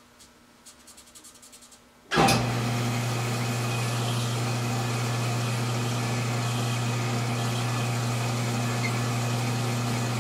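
Metal lathe switched on about two seconds in, its motor running steadily with a low hum while it spins a rifle barrel so a Scotch-Brite pad on a rod can burnish the chamber. A few faint clicks of handling come before it starts.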